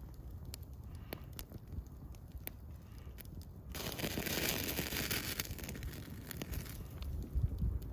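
Open wood campfire crackling, with scattered sharp pops throughout. A steady hiss rises abruptly a little under halfway through, lasts about three seconds, then fades.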